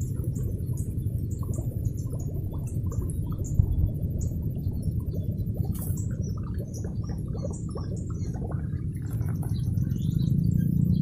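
Outdoor ambience: a steady low rumble like wind on the microphone, with scattered short high bird chirps. A low hum comes in near the end.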